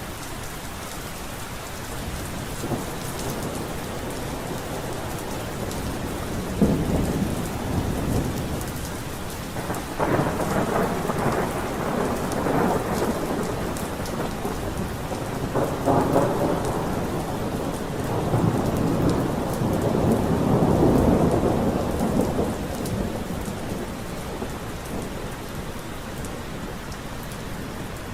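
Steady rain falling through a thunderstorm, with thunder cracking and rumbling several times. The longest and loudest roll of thunder comes about two-thirds of the way through.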